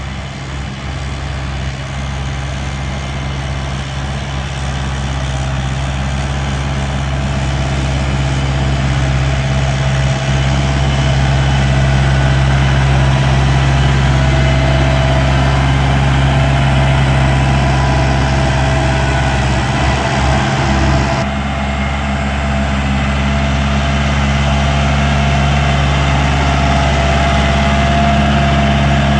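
Kubota L4508 tractor's diesel engine running steadily under load as it pulls a tine cultivator through ploughed soil, growing louder as the tractor draws near.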